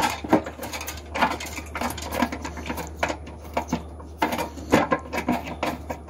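Nut driver unscrewing a nut from the ballast's mounting stud inside a sheet-metal fluorescent light fixture. It makes a run of irregular small metallic clicks and scrapes, several a second.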